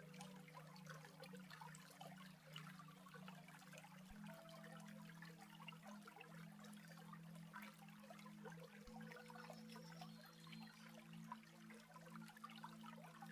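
Faint trickling stream water under a soft sustained music drone whose low notes change about every four to five seconds, with a brief high bird chirp about ten seconds in.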